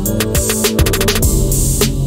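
Background music with a steady drum-machine beat.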